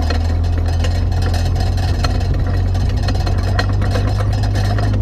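Steady low drone of a GMC Yukon XL's engine and tyres while driving along a dirt trail, with light crackling of gravel and dirt underneath.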